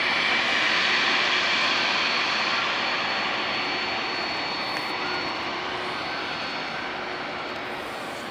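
Boeing 767-300ER jet engines at taxi power as the airliner turns onto the runway: a steady rushing noise with a high whine, fading slowly.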